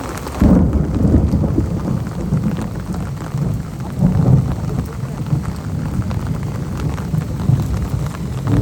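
Thunder rumbling over steady rain; the rumble starts suddenly about half a second in and swells again around four seconds.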